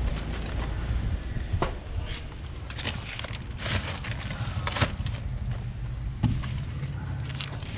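Plastic bags rustling and scattered knocks as a computer monitor and bags are handled and set into a car's cargo area, over a low steady rumble.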